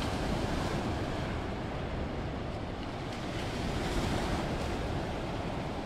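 Ocean surf washing onto the beach, with wind rumbling on the microphone; the surf swells a little about four seconds in.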